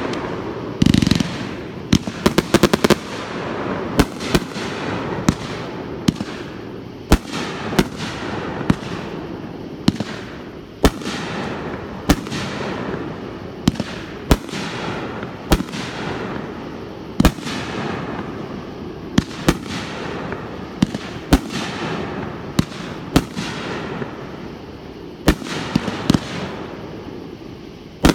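Aerial firework shells bursting overhead in quick succession: sharp bangs every second or two, each followed by echo. A cluster of bangs with a heavy deep thud comes about a second in.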